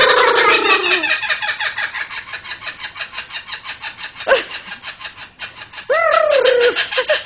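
A tame bird calling: a long drawn-out falling call at the start, a short call about halfway through and a rising-then-falling call near the end, over a steady rapid rattling pulse.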